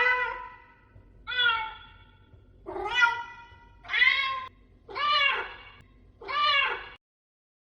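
Domestic cat meowing six times, about one call a second, each call rising and then falling in pitch. The sound cuts off abruptly near the end.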